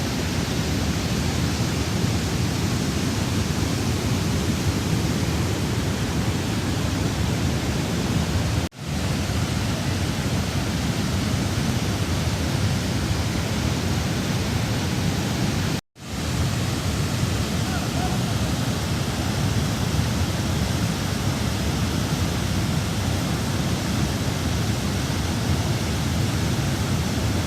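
Rushing floodwater: a steady, dense roar of fast-moving water, heaviest in the low range. It cuts out twice for a split second.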